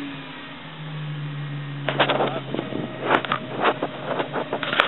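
Toyota turbo pickup's engine idling steadily. From about two seconds in, it is joined by irregular swishing footsteps through tall wet grass.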